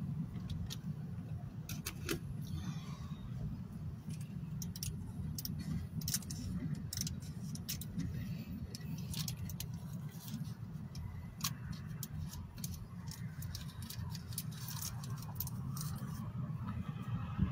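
Steady low rumble inside a car, with scattered light clicks and rattles from the phone being handled and shifted.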